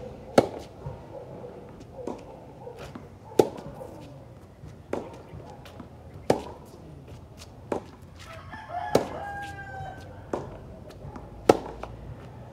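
Tennis ball struck by rackets and bouncing on a hard court in a baseline rally, sharp pops about every second and a half. A rooster crows once, about two thirds of the way through.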